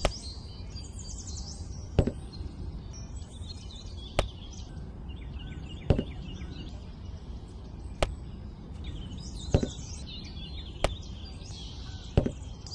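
Sharp single impacts, about eight, roughly one every one and a half to two seconds, over a low steady background, with birds chirping between them.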